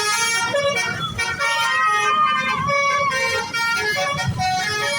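Telolet musical horn of a Basuri bus playing a melody of many short stepped notes, one pitch after another every fraction of a second, over a low rumble.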